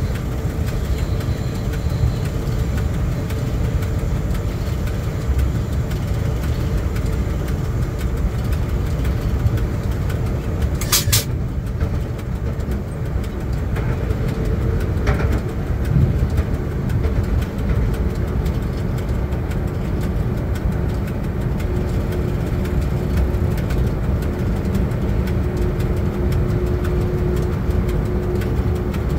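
Cab noise of a ChS4 electric locomotive under way: a steady low rumble with a brief sharp click-like sound about eleven seconds in. A faint steady hum joins in during the second half.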